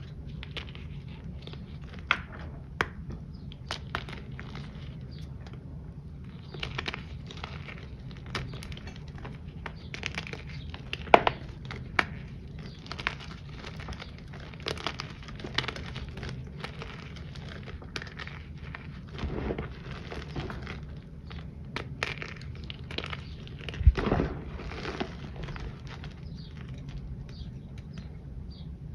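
Hands crushing handmade pressed-powder shapes and chunks: irregular crunching and crumbling with sharp cracks now and then, from shapes made from a batch of powder that leaves them a little crunchy.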